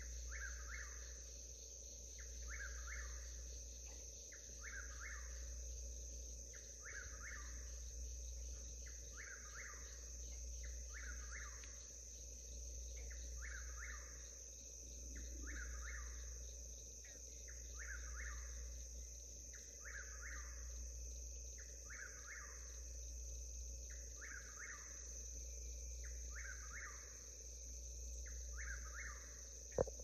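Whip-poor-will singing its song over and over, about one call every 1.3 seconds, over a steady high drone of crickets. A brief sharp knock comes right at the end.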